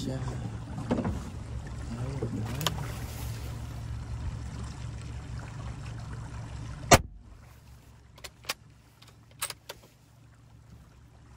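A small boat's motor running with a steady low hum, then a single loud rifle shot about seven seconds in, followed by a few short sharp clicks.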